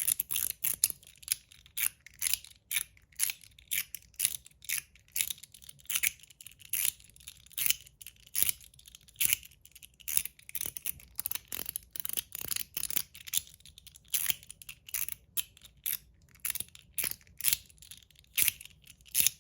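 01 EDC slider fidget with a mechanical spring detent liner being slid back and forth, clicking sharply as it snaps into its detents, about two clicks a second. It is fitted with light springs and slides smoothly.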